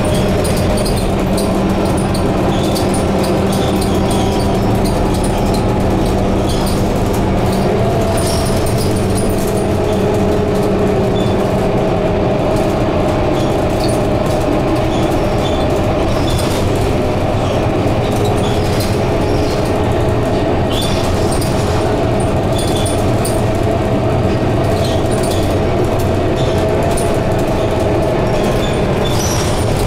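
Scania K230UB double-decker bus heard from inside the upper deck while driving along: a steady drone from its engine and driveline under tyre and road noise, with scattered light clicks and rattles from the body. The drone's pitch rises a little about eight seconds in.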